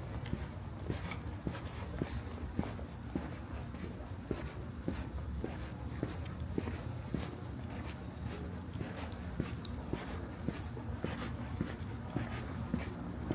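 Footsteps of a person walking at a steady pace, about two steps a second, over a low steady background rumble.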